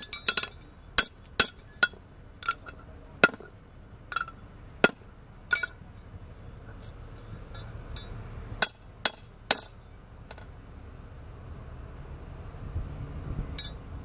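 Farrier's hammer striking a steel horseshoe on an anvil to shape it. The strikes ring and come at an uneven pace for about ten seconds, then stop, with one more strike near the end.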